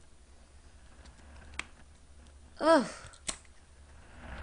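A few faint sharp clicks as ice cubes and a plastic tray are handled, with a short hummed vocal sound from a woman about two-thirds of the way through, rising then falling in pitch.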